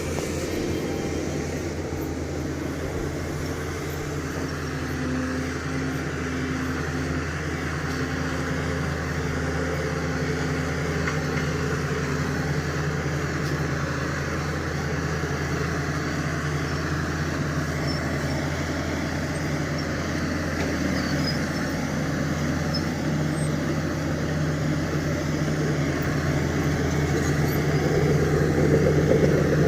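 Diesel engine of a heavy earthmoving machine running steadily under work, getting somewhat louder near the end.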